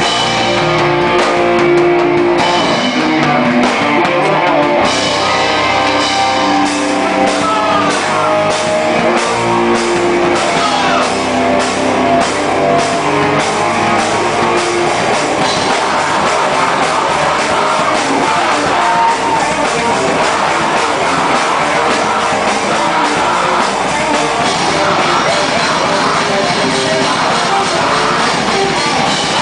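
Live heavy rock band playing a song: distorted electric guitars over a drum kit, with held melody notes in the first half giving way to a denser, full-band sound.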